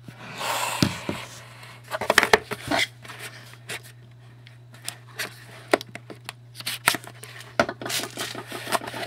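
Trading-card box packaging being torn open and handled: a crinkling tear of wrapping in the first second, then scattered clicks and scrapes of cardboard and cards, over a steady low electrical hum.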